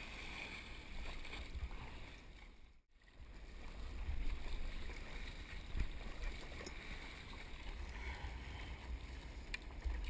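Water sloshing and soft paddle strokes from stand-up paddling across calm sea, under a steady low wind rumble on the camera's microphone. The sound drops out for a moment about three seconds in.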